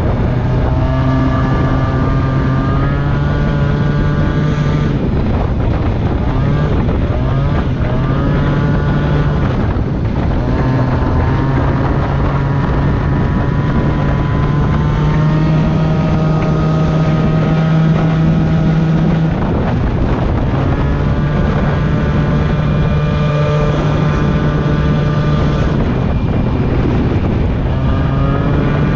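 Yamaha BWS scooter's two-stroke engine running under way, its pitch rising and falling in several swells as the throttle is opened and eased off, with wind on the microphone. The scooter is on a test ride after a front wheel, axle and brake caliper repair, and seems to be running fine.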